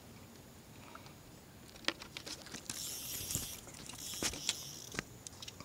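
Tackle handling on a skiff while a small tarpon is fought on a fly rod: scattered sharp clicks and taps, with two brief hissing rushes about three and four seconds in.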